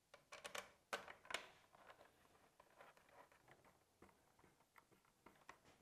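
Faint clicks and light metallic taps as an M8 button head bolt is set into a motorcycle's rear fender mount and threaded in by hand. A few sharper clicks come in the first second and a half, then scattered small ticks.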